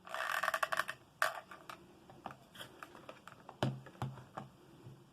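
Paper crinkling and rustling as sheets are rolled into small tubes, followed by scattered light clicks and taps of handling on a table, with one soft knock about three and a half seconds in.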